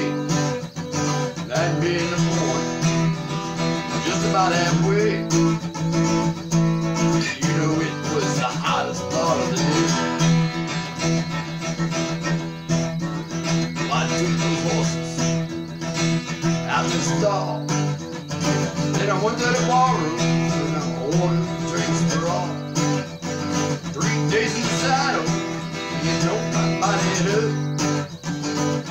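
Steel-string acoustic guitar being played, with chords strummed and picked over a steady ringing bass note.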